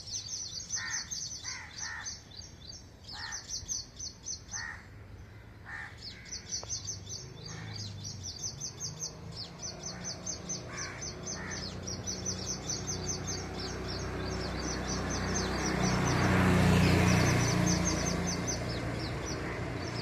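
Small birds chirping in rapid high-pitched runs of many notes a second, with short, harsher lower calls from another bird in the first third. A low rumbling noise builds through the middle, is loudest near the end, then eases a little.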